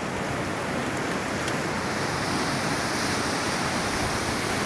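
Steady rushing of a swollen, muddy river in flood, its water churning past the bridge, getting a little louder about halfway through.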